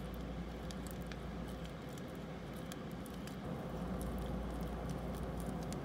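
Slime with chunks in it being pulled apart and squished by hand, giving faint, scattered clicks.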